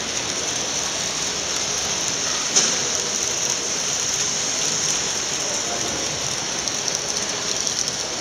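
Model train running along its track amid a steady hiss of hall noise, with one sharp click about two and a half seconds in.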